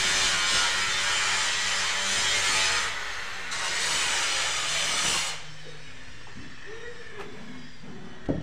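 Hand tool scraping and carving into a gypsum plaster cornice: a steady scrape that dips briefly about three seconds in and stops about five seconds in. A single sharp knock near the end.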